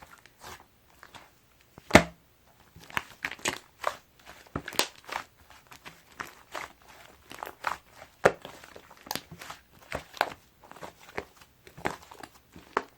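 Sticky clay slime being pressed and pulled by hand, making an irregular run of wet clicks and pops, the loudest about two seconds in.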